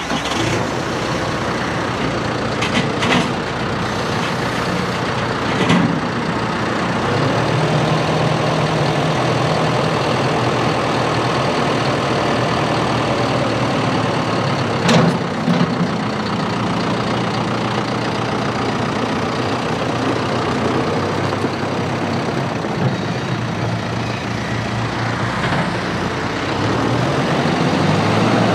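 John Deere 5085E's four-cylinder turbo diesel running steadily while the loader bucket is raised and lowered, with a few short knocks along the way. Near the end the engine gets louder and its pitch rises as the tractor pulls away.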